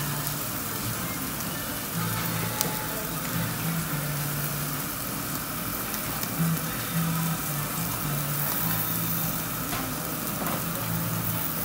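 Marinated kalbi and onion slices sizzling steadily on a tabletop yakiniku grill, with the low notes of background music underneath.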